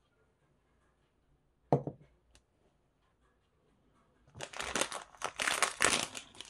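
A ceramic mug set down on a desk with one knock, then the plastic wrapper of a Melona ice-cream bar crinkling loudly in a burst of crackles as it is handled, running for about two seconds near the end.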